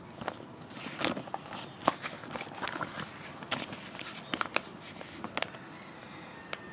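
Paper pages of a booklet rustling and crinkling as they are turned and handled: a string of irregular soft crackles and ticks.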